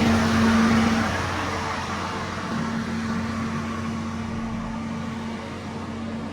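Heavy road-construction machine's diesel engine running steadily with a constant hum, louder for about the first second and then easing to a lower, even level.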